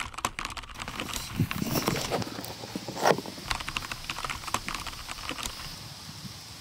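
Keyboard-typing sound effect: a rapid, irregular run of clicks and clacks, with a few heavier strokes standing out.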